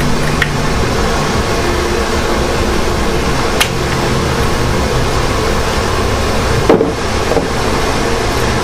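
A carpet-drying fan refitted with a variable-speed ECM blower motor runs steadily at half speed with a continuous rushing whir. A few light clicks and one louder knock about seven seconds in come from hands working parts on the engine.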